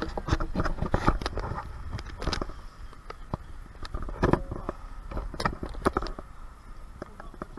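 Handling noise from a body-worn action camera: irregular knocks, clicks and rustles as it is jostled, over a low steady rumble.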